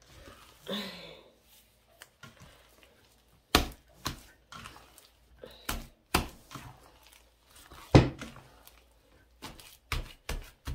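A hand squelching and slapping a chilled, partly frozen ground-chicken meatball paste in a stainless steel bowl, with irregular sharp slaps every second or two. This is the hand-mixing stage before the meatballs are shaped.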